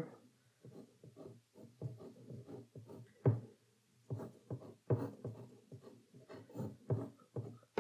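Pencil drawing on heavy rough watercolour paper: short scratching strokes, about three a second, unevenly spaced.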